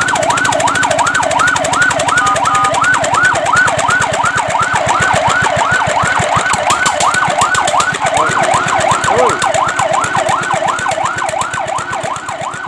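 Fire truck siren on a fast yelp, its pitch sweeping up and down about three times a second. A short steady tone cuts in briefly about two seconds in.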